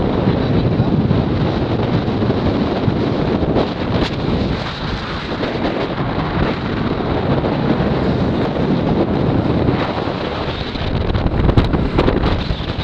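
Wind buffeting the microphone while riding a motor scooter, a loud steady rush with road and engine noise underneath. A few short knocks come near the end.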